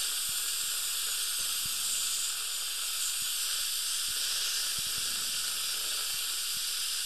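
High-speed dental drill with water spray cutting into a molar to remove an old composite filling, with suction running alongside: a steady high hiss.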